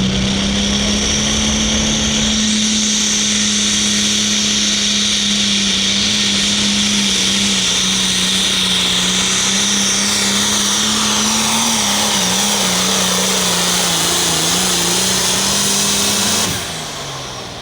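Turbocharged diesel engine of a hot farm class pulling tractor held at full throttle under load, with a high turbo whistle over a steady engine note. The note sags a little near the end, then the throttle is let off and the engine winds down.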